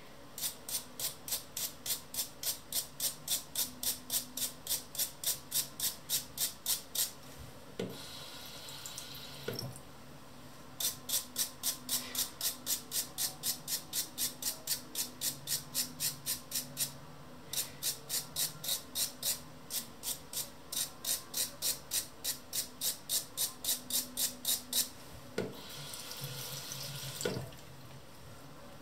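Brass wire brush scrubbing rust off a steel plane cutting iron in quick back-and-forth strokes, about four a second. The strokes come in long runs with short breaks, two of which hold a softer steady hiss.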